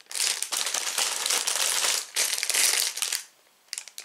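Plastic Lego parts bags crinkling and rustling as they are handled for about three seconds, followed by a few light clicks near the end.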